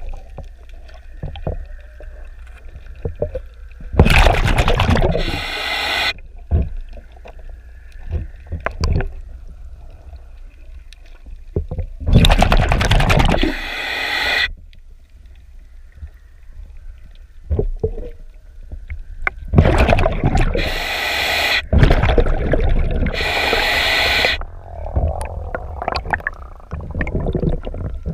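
A scuba diver's breathing heard underwater: bubbles rush out of the regulator on each exhale, followed by a hissing inhale, several times, each breath lasting about two seconds. Between breaths a scrub pad scrapes faintly against the fouled boat hull.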